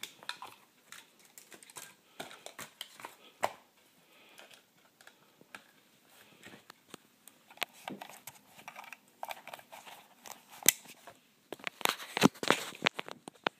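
Hands handling a small plastic electronics unit and its wires: scattered sharp clicks, taps and rustling, with a dense run of clicks and rustles near the end.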